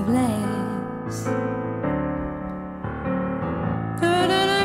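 Background music: a soft song carried by piano chords, with a sung note coming in near the end.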